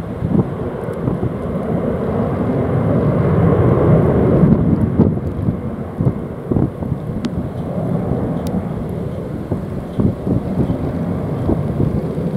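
Storm-force wind gusting and buffeting the microphone: a loud low rumble that swells to its loudest about four seconds in and then eases, with irregular thumps from the gusts.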